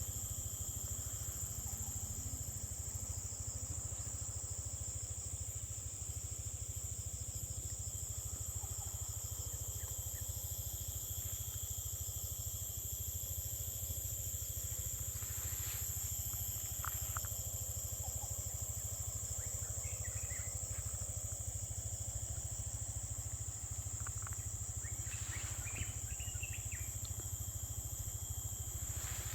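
Steady high-pitched drone of insects such as crickets or cicadas, with a few short bird chirps about halfway through and again near the end, over a steady low rumble.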